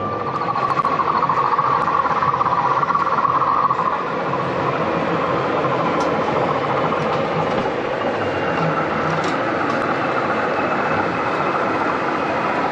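Diesel engine sound from a sound-fitted O gauge model diesel locomotive, a steady drone with a louder whine for the first few seconds that then eases off, over the general hum of an exhibition hall.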